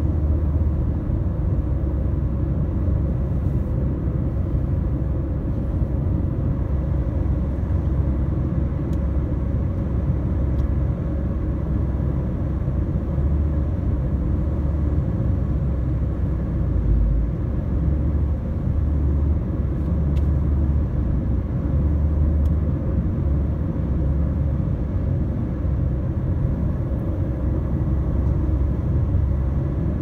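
Steady low rumble of tyre and engine noise inside a moving car's cabin.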